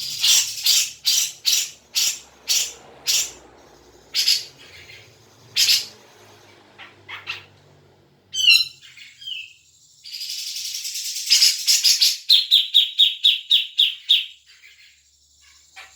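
Cucak jenggot (grey-cheeked bulbul) calling loudly with harsh repeated chattering notes, about two a second. About halfway through comes a quick falling trill, then a raspy buzz and a fast run of clipped notes near the end.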